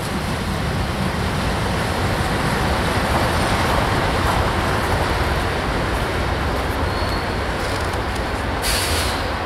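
Freight train of boxcars rolling away on the rails: a steady rumble of steel wheels on track, with a brief hiss near the end.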